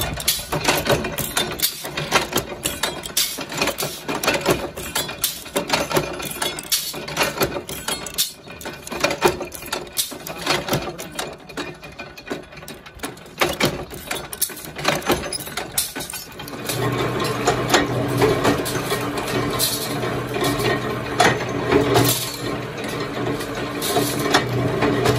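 Belt-driven flywheel power presses running and repeatedly clanking as they punch steel alligator-clip parts. About two-thirds of the way through the sound changes to a steady machine hum with lighter clicking over it.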